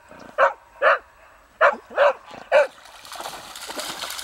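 Beagle barking at ducks: five short, sharp barks in quick succession. About three seconds in, splashing starts and grows as the dog runs through shallow water.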